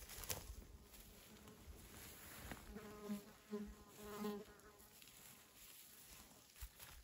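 A flying insect buzzing past for about two seconds in the middle, its hum swelling and fading a few times.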